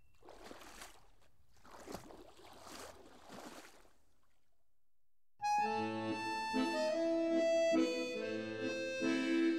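Three soft swells of rushing noise, a short silence, then music starts suddenly: a melody over held chords.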